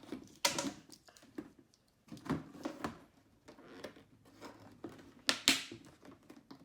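Plastic Beyblade toy parts being handled and pushed together: scattered sharp clicks and short plastic rattles and rustles, the loudest about half a second in and again near the end.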